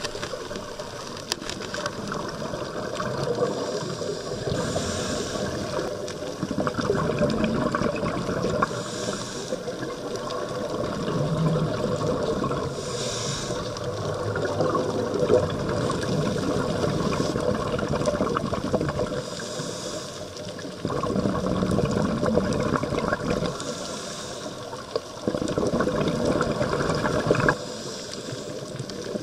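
Underwater noise heard through a diver's camera: a continuous churning wash of water, with a hissing rush of exhaled scuba bubbles about every four to five seconds. The wash jumps abruptly in loudness a few times in the last third.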